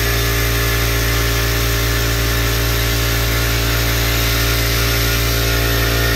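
Upright portable air compressor running steadily, with a loud low hum and a steady whir over it. This is its baseline noise inside its small shed, before the walls are insulated.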